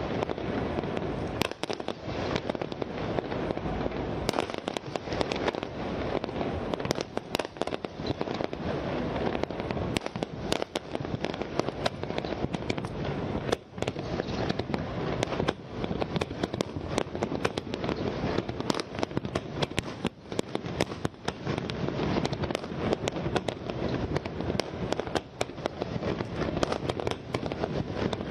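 Large aerial fireworks display: a dense, unbroken run of sharp bangs and crackles over a continuous rumble, many reports a second with no letup.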